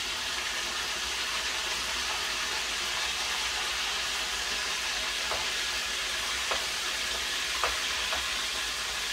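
Hot oil sizzling steadily in a frying pan as spoonfuls of seasoned fish-egg (roe) mixture fry, with a few faint clicks after the middle.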